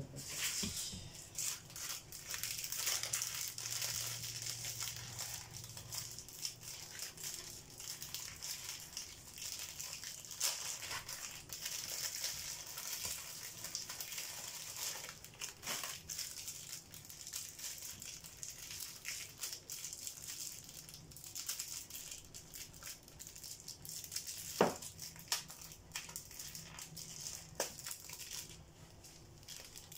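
Fingers rubbing and picking a thick, crumbly crêpe dough off a wire whisk and in a mixing bowl: a continuous crackling rustle with many small clicks, and one sharper click near the end.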